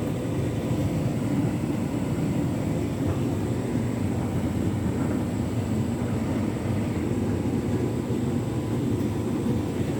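Hotpoint Ultima S-line tumble dryer and Candy Grand'O Vita washing machine running together: a steady, even rumble of turning drums and motors.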